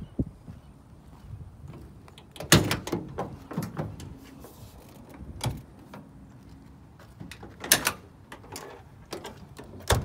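Clunks and knocks of a 1963 Chevrolet C10 panel truck's rear cargo door being handled and swung open. The loudest knock comes about two and a half seconds in, with a few more spread through the rest.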